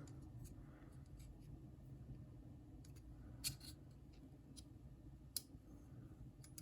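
Faint small clicks and light scrapes of pocket-knife parts being handled and fitted together, with two sharper ticks, one about three and a half seconds in and one about five and a half seconds in.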